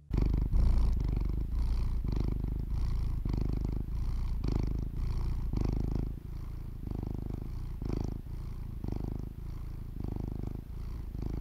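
A cat purring, close and steady, the low purr swelling and easing with each breath; it is somewhat softer after about six seconds.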